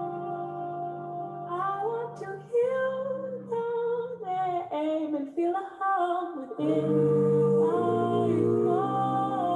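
A slow, gentle song: a woman singing a melodic line over held chords, with the chords swelling fuller and steadier in the second half.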